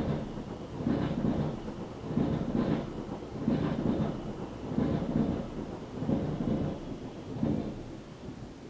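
Loud low rumbling noise coming in uneven surges about once a second, dying down near the end.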